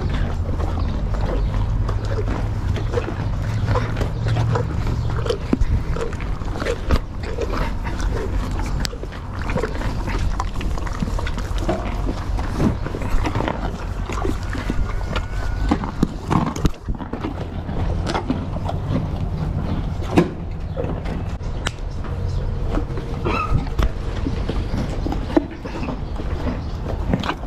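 Several horses crunching and chewing carrots: many short, sharp crunches and bites, irregular and overlapping, over a steady low rumble.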